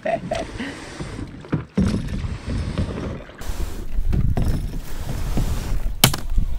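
Kayaks being readied at the water's edge: irregular handling knocks and scrapes of gear on plastic hulls, then a low rumble of wind on the action camera's microphone. One sharp knock near the end as a cooler box is set down on a kayak.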